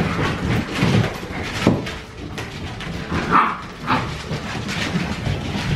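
Siberian husky puppies playing with an adult husky: short dog yips and play noises, with one brief higher-pitched yelp about three seconds in. Scattered clicks and scuffles of paws run over the hard floor.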